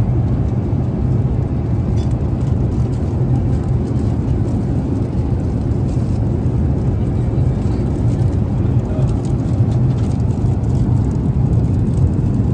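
Steady low roar inside the cabin of an Airbus A380 in flight, the even engine and airflow noise heard from a passenger seat.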